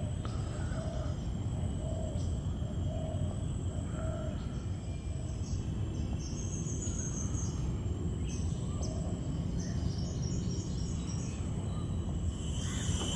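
Forest ambience: a steady high insect drone, with a short low bird call repeated every half second or so over the first few seconds and scattered higher chirps in the middle, over a constant low rumble.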